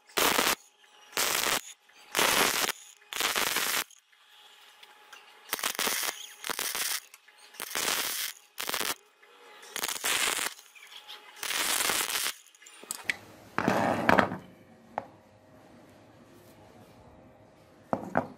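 Electric arc welding in short tack-welding bursts: about ten crackling, spitting runs of roughly a second each, with brief pauses between them. Near the end, a short knock and rattle of metal parts being handled, then one click.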